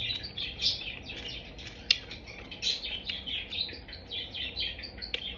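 Close-up, wet chewing and lip-smacking while eating fish: a fast, irregular run of short smacks and clicks, with one sharper click about two seconds in.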